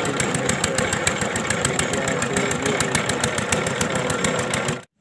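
Diesel engine driving a water-well boring rig, running steadily with a rapid, even knock about ten times a second. It cuts off abruptly near the end.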